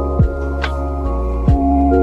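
Background music: sustained keyboard chords over a deep drum beat, with two low drum hits that drop quickly in pitch.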